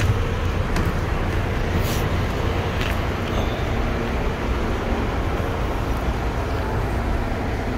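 Diesel buses idling at close range: a steady low engine rumble with a faint hum. Twice, about a second apart, there is a short hiss.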